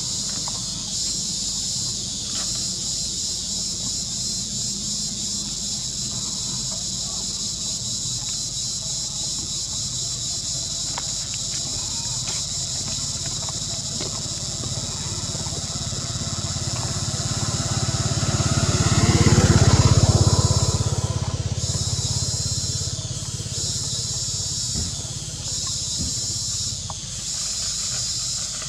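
A steady, high-pitched buzzing chorus of insects, with a vehicle growing louder and passing about two-thirds of the way through, then fading.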